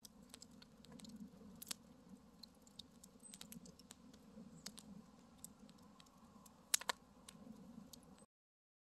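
Faint wood fire crackling in a fire pit: irregular sharp snaps and pops over a low steady rush, with two louder pops near the end, then the sound cuts off suddenly.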